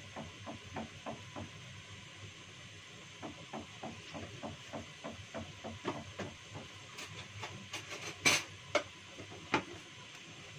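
Soup boiling in a saucepan on a gas stove: a steady hiss under runs of light, regular ticking, about three to four a second, with a few louder clicks toward the end.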